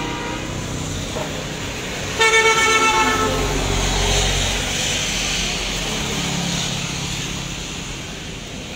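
A vehicle horn honks once, loud, for under a second about two seconds in. Then a vehicle passes on the wet road with a low rumble and a hiss of tyres on water, over steady traffic noise.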